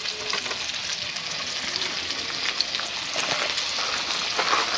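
Food sizzling on a Cadac Safari Chef 30 Lite portable gas barbecue: a steady hiss dotted with frequent small crackles.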